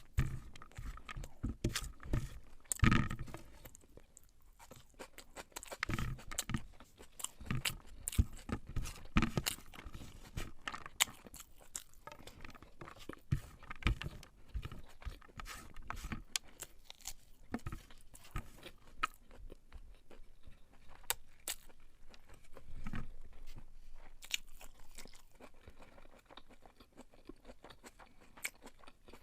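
Close-miked chewing of beef pilau: irregular wet mouth clicks and crunches, louder in bunches at each fresh mouthful.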